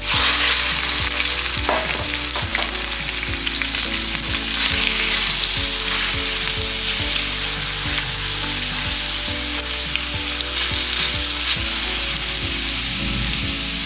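Sliced pork steak hitting hot sesame oil in a stainless steel frying pan, starting to sizzle the moment it goes in and sizzling steadily. A metal spoon scrapes and knocks against the pan as the meat is spread and stirred.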